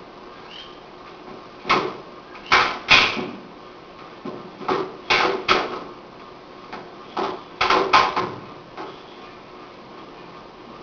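Sharp slaps and thumps in three quick clusters, about ten in all: hands and arms striking and blocking in a Jeet Kune Do partner drill.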